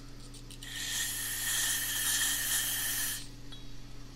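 A pressurised jet hisses through a small engine carburetor's passages to blow them clear. It starts about half a second in and cuts off after about two and a half seconds, with a faint whistle riding on the hiss.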